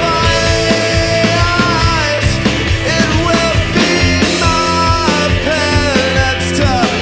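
Punk-rock band recording playing at full volume, with a steady beat under gliding melodic lines.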